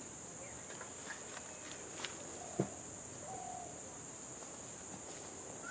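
Steady high-pitched drone of insects in the forest, with a second, higher insect drone joining about four seconds in. A faint knock and a couple of brief faint calls come near the middle.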